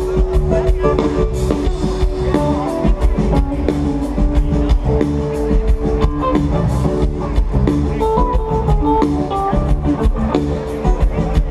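A jam band playing live through the big speakers of an outdoor festival stage, heard from within the crowd: guitar lines over bass and drums.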